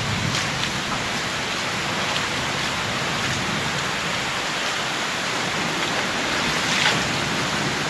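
Steady storm rain falling hard, an even hiss of rain on surfaces, with one brief sharper sound about seven seconds in.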